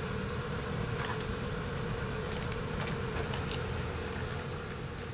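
Greenhouse ventilation fan running: a steady mechanical hum with a constant mid-pitched whine over a low rumble, and a few faint clicks.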